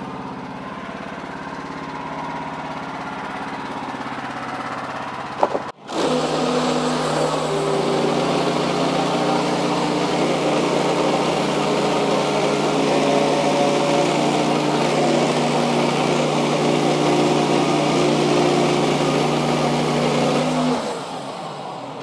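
Wood-Mizer LX55 portable band sawmill's engine running steadily. About six seconds in, it comes under load as the band blade saws lengthwise through a poplar log, a steady hiss of cutting over the engine note. The sound drops about a second before the end.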